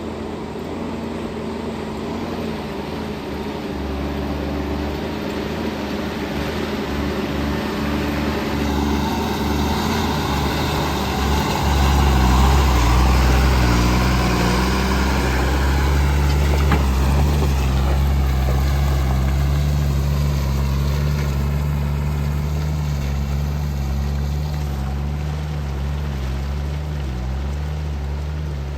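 Heavy diesel engine of earth-moving machinery running steadily, then working harder and louder from about twelve seconds in. A higher whine rises and falls over it through the middle.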